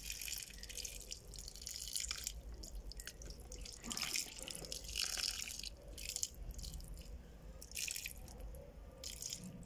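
A thin stream of water poured onto a bonsai pot's granulated brick substrate, splashing and trickling in uneven spurts. It is the thorough first watering after repotting, soaking the whole substrate.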